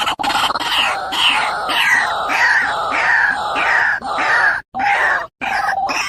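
Birds giving harsh, falling cries over and over, about two a second, broken twice by brief cuts to silence near the end.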